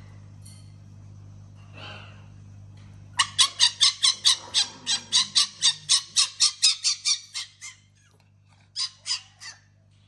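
Fennec fox chattering in annoyance at being disturbed: a rapid run of sharp, high yelps, about five a second, that slows and stops after some four seconds, then three more yelps a second later.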